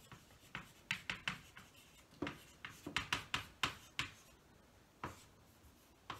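Chalk writing on a chalkboard: an irregular run of short taps and scrapes as letters are written, bunched in quick clusters, with a brief lull about four and a half seconds in.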